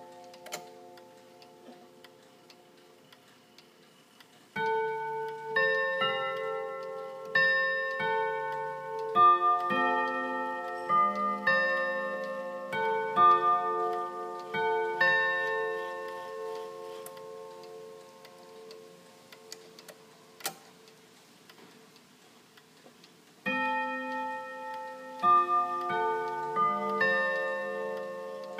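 Antique French ODO 121 chiming clock, its hammers striking tuned gong rods. After about five seconds it plays a chime melody of ringing, overlapping notes that slowly die away. A new chime phrase starts a few seconds before the end.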